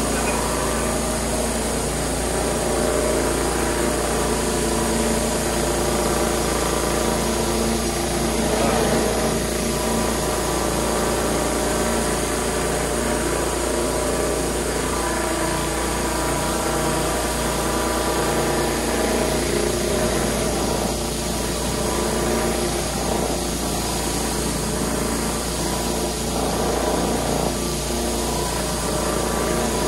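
Pressure washer running steadily while its rotary surface cleaner is pushed over wooden deck boards, with the hiss of the high-pressure water jet under the cleaner's hood.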